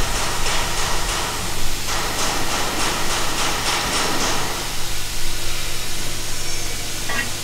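Steady workshop machine noise: a continuous hiss over a low hum, with faint rapid ticking through the middle.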